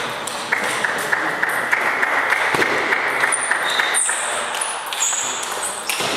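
Table tennis rally in a doubles match: the ball clicking off bats and table, about three hits a second, each with a short ringing ping.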